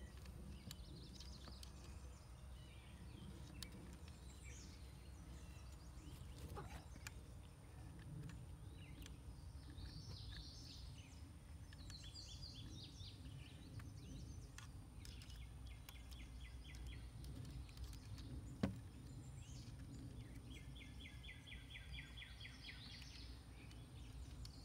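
Quiet outdoor ambience: a low steady background rumble with small birds chirping and giving short, rapid trills every few seconds. A single sharp click sounds about three-quarters of the way through.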